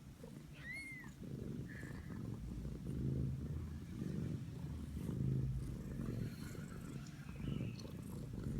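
Mother cat purring beside her newborn kittens, a low rumble that swells and fades about once a second with each breath. A short high chirp comes about a second in.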